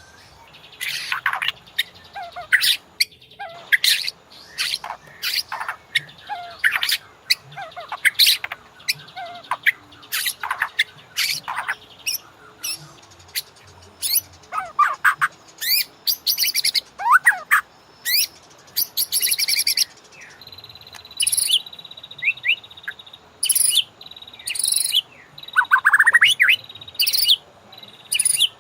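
White-rumped shama (murai batu) singing: a rapid, varied run of sharp chirps, clicks and slurred whistles in short phrases separated by brief pauses.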